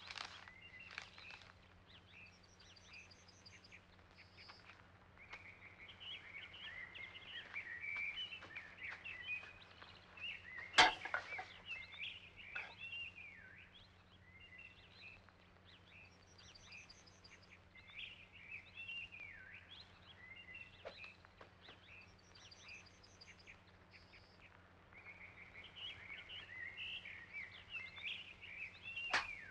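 Outdoor birdsong: several birds chirping continuously, with a high trill repeated several times, over a faint steady hum. A sharp crack of a golf club striking the ball comes about eleven seconds in, and another just before the end.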